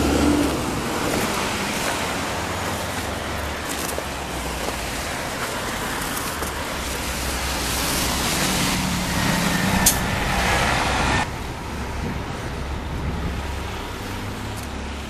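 Busy road traffic: cars passing in a steady stream of tyre and engine noise. The noise drops suddenly about eleven seconds in.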